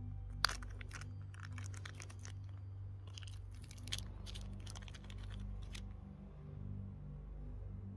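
A run of irregular crunches and sharp clicks, with one loud crack about half a second in, over low, steady background music.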